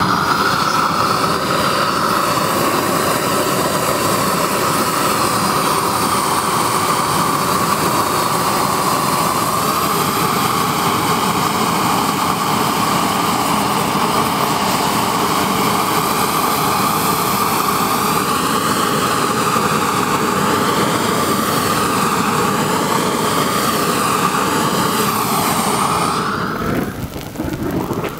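Hand-held gas torch burning with a steady hiss and a held tone as it heats and melts thermoplastic repair granules into a pothole patch. It starts suddenly and cuts off near the end.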